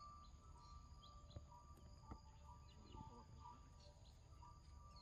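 Faint forest ambience: scattered short bird chirps and steady thin insect-like tones over a low rumble.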